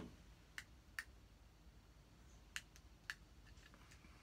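A few sharp, separate clicks and taps from handling a camcorder, the loudest right at the start, over near silence.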